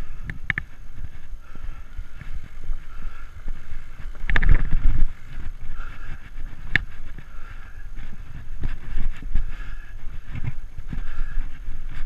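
Framed Alaskan fat-tire mountain bike rolling over a dirt singletrack trail: a steady low rumble of tyres and frame, broken by frequent knocks and rattles from trail bumps, with the biggest jolt about four seconds in and a sharp click a couple of seconds later.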